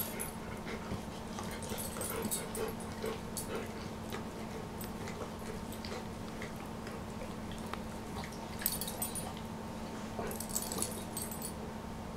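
Two dogs licking each other's faces and mouths: wet smacking licks in short crackly clusters, scattered through with small clicks.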